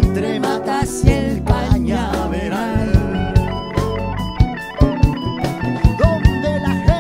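Live Latin fusion band playing: drum kit, hand percussion, bass, keyboard and guitars, with a guitar line to the fore.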